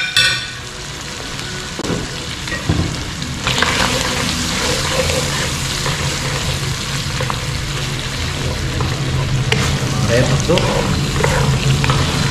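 Sliced pork stomach and kidney sizzling in a sauce in a frying pan, stirred and scraped with a wooden spatula. A short clink comes right at the start, and the sizzle grows louder about three and a half seconds in.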